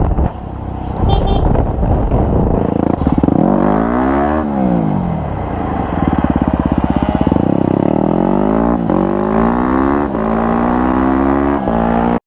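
Dirt bike engine revving up and dropping back, then accelerating hard with the pitch climbing and dipping at each of several gear shifts.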